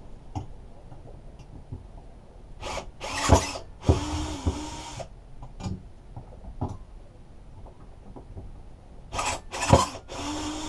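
Cordless drill-driver backing out the screws that hold the cable brackets to lawnmower handlebars: two short runs of about a second each, one about four seconds in and one near the end, with sharp knocks of the bit and handling just before each run.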